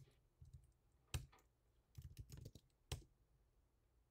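Faint keystrokes on a computer keyboard: a few separate key presses, with a short run of quick taps about two seconds in.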